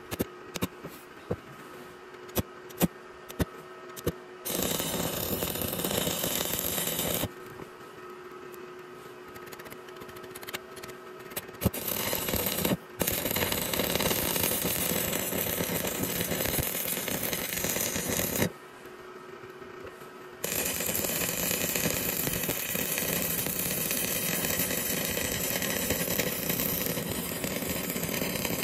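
Stick (manual arc) welding of steel angle onto a steel ground rod: the electrode arc crackles and sizzles in runs several seconds long, broken by short pauses where the arc is stopped. There are a few sharp clicks in the first few seconds before the first run.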